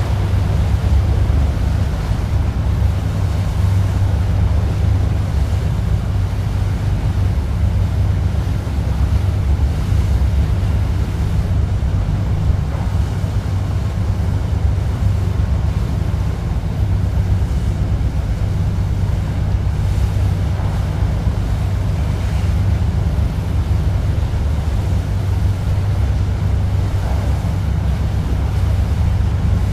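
A tour boat under way: its engine gives a steady low drone, with water rushing along the hull and wind buffeting the microphone.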